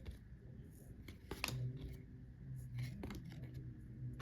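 Trading cards handled by hand: faint slides and a few sharp snaps of card stock as the cards are flipped through, the strongest about a second and a half in and again near three seconds.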